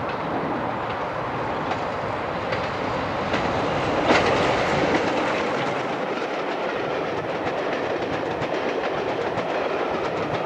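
Steam-hauled passenger train passing close by at speed. The locomotive goes by about four seconds in, the loudest moment. Then the coaches' wheels clatter over the rail joints in a run of clicks.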